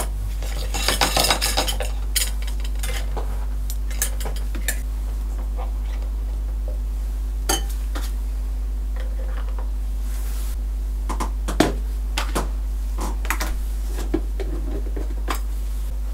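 Toy kitchen pieces handled: a small metal toy frying pan, plastic toy food and plastic utensils clinking and clattering. A flurry of clatter comes about a second in, then scattered single clicks and taps, over a steady low hum.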